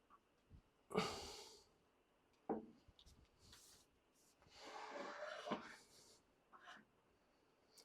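Objects being handled in a workshop: a sharp knock about a second in, a lighter knock a moment later, then a scraping slide that ends in another knock.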